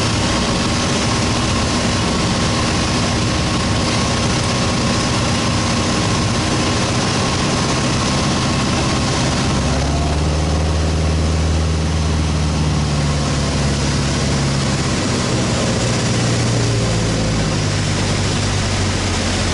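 Single-engine light airplane's piston engine and propeller heard from inside the cabin, with wind hiss, during approach and landing. About halfway through, the engine note drops lower and the hiss eases; near the end the sound changes again as the plane rolls out on the runway.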